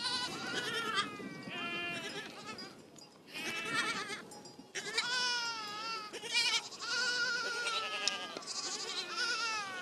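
A flock of sheep and goats with lambs and kids bleating, many quavering calls overlapping one after another.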